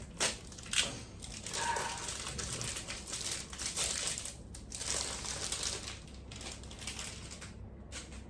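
Packaging crinkling and rustling as it is handled, with two sharp clicks in the first second.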